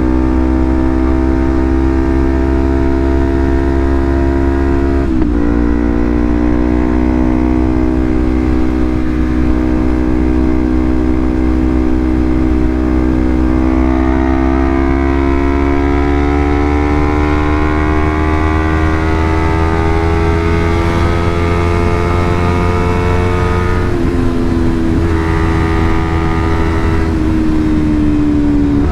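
Honda CBR250RR engine running through a Leovince GP Corsa full-system exhaust, held at a steady engine speed above idle. Its pitch dips slightly about five seconds in, climbs slowly over the following stretch, and falls back near the end.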